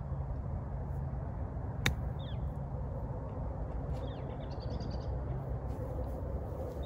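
A golf wedge strikes the ball once, a single sharp click about two seconds in. Small birds chirp a few times afterwards over a steady low outdoor rumble.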